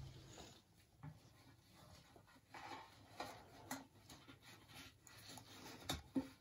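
Faint rubbing and scraping with soft clicks as a WW2 Czechoslovak gas mask is worked up out of its tight-fitting metal storage canister, with a couple of sharper knocks near the end.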